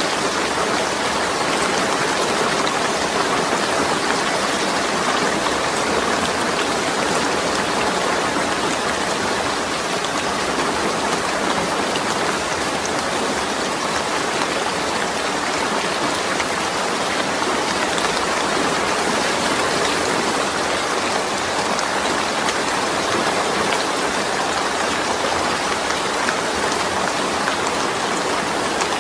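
Steady rain falling, a dense even patter of drops without thunder.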